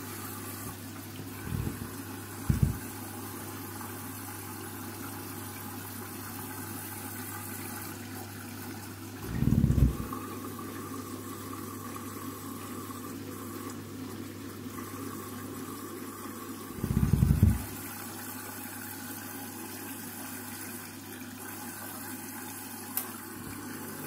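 Candy front-loading washing machine filling with water early in a Delicates cycle: a steady rush of water running in over a low hum. A few dull low thumps stand out, two light ones near the start and two heavier ones spaced several seconds apart in the middle.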